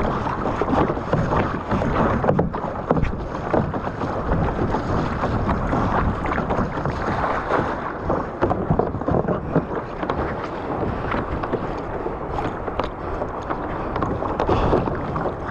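Sea water sloshing and splashing steadily against a kayak's hull, with many small splashes and wind buffeting the microphone.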